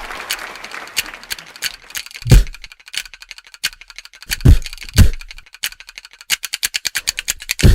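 Percussion break in a song: sharp dry clicks with a few deep drum thumps, the clicks speeding up into a fast roll near the end as sustained music with a held bass note comes in.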